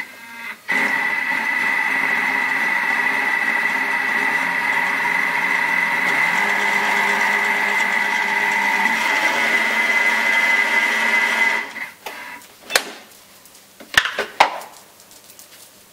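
Electric kitchen mixer motor running steadily with a high whine, mixing a dry chocolate cake batter of flour, sugar, cocoa and oil. It runs for about eleven seconds and stops, followed by a few sharp knocks.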